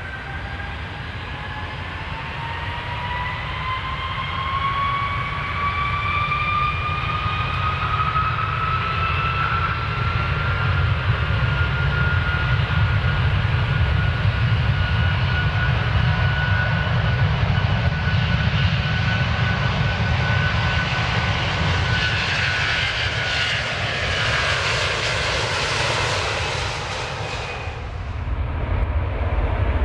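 Airplane engines spooling up for takeoff: a whine rising in pitch over a steady low rumble, growing louder. Near the end a rushing noise builds up and then cuts off suddenly.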